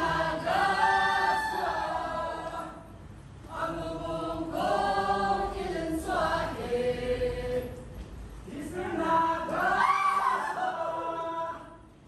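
A mixed group of voices singing together without instruments, in a chant-like song sung in long phrases with short breaks between them.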